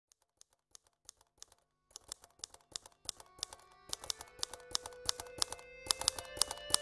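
Typewriter keys clacking, a few scattered strokes at first and then a quick run of typing, while soft music fades in beneath it about halfway through.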